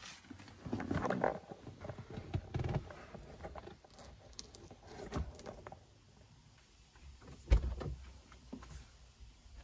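Rustling, shuffling and small knocks of a person climbing into a car seat, with one dull thump about seven and a half seconds in.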